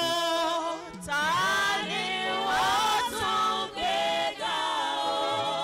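Voices singing a Yoruba thanksgiving praise song in long sliding phrases, with held low accompanying notes underneath.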